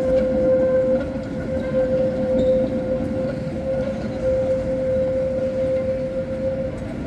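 Tram wheels squealing on curved street track: one steady, held squeal tone over the low rumble of the moving tram.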